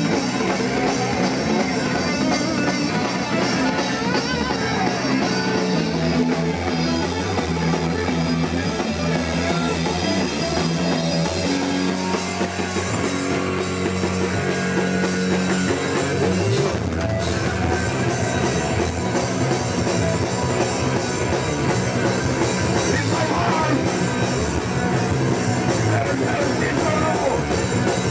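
Hardcore punk band playing live and loud: electric guitar, bass and a drum kit with crashing cymbals, dense and without a break.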